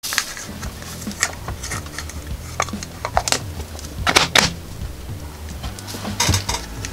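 Hard plastic clicks and rattles from a plastic egg capsule shell being handled and its two halves pressed together. The loudest cluster of clicks comes about four seconds in, with another near the end.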